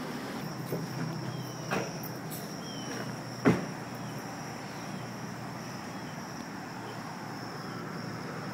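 A mass of crickets chirping in one steady high-pitched chirr, with a sharp knock about three and a half seconds in and a lighter one near two seconds.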